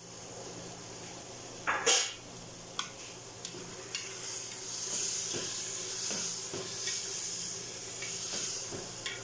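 Chicken and tomato sauce sizzling in an aluminium pot on a gas flame that is set too high, the sizzle swelling louder about halfway through. A sharp clatter about two seconds in, then scattered small knocks and scrapes of stirring against the pot.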